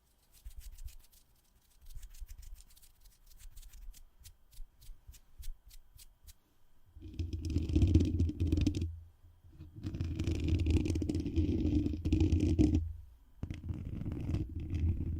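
Close-miked rubbing and scraping against an ASMR microphone. Soft rustles and light clicks come first; about seven seconds in, three long, loud stretches of friction start, with short gaps between them.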